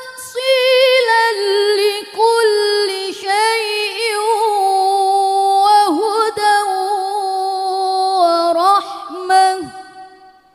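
A young woman reciting the Qur'an in the murattal style into a microphone, her voice held on long steady notes that step and bend in pitch, with short breaths between phrases. The last phrase fades out near the end.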